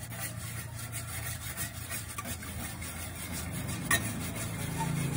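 Wire whisk beating egg yolks, oil and water in a stainless steel bowl by hand: repeated scraping strokes of the wires against the metal, with one sharp tap about four seconds in.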